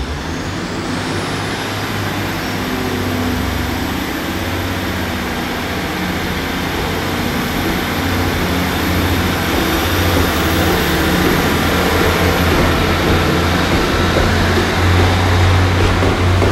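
A Class 150 and a Class 143 Pacer diesel multiple unit pulling out of the platform, their underfloor diesel engines working under power with a steady low hum, growing slowly louder as the train draws past. A faint high whine rises over the first two seconds and then holds.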